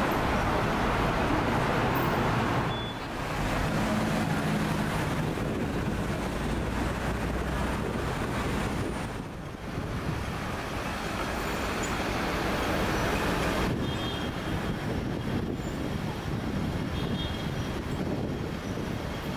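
City street traffic: a steady wash of passing vehicles, dipping briefly a few seconds in and again about halfway through.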